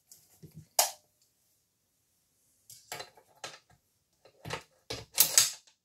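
A Howa rifle bolt being fitted into its steel action: metal clicks and clinks, one sharp click about a second in, then several more and a short scraping slide of the bolt in the receiver near the end.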